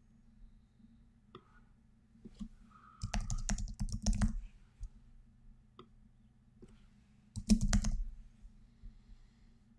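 Typing on a computer keyboard in two quick runs of keystrokes, the first about three seconds in and lasting over a second, the second shorter and about seven and a half seconds in, with a few single key clicks between them.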